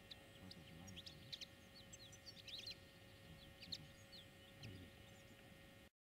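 Faint calls of small birds: many short, high chirps and a quick trill, over lower short calls repeating about once a second and a faint steady tone. The sound cuts off just before the end.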